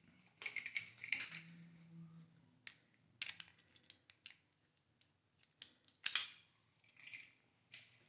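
Faint, scattered clicks and scrapes of a screwdriver working the terminal screw of a wall outlet to free a wire, with the metal switch-and-outlet strap being handled.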